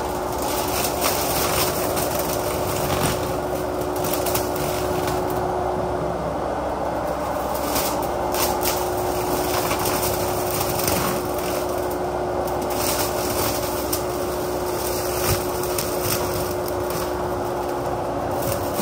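Menzi Muck walking excavator running steadily while working a hydraulic flail mower head through ditch vegetation: a constant engine and hydraulic drone with a steady hum, which drops out briefly about six seconds in, and irregular sharp clicks and knocks on top.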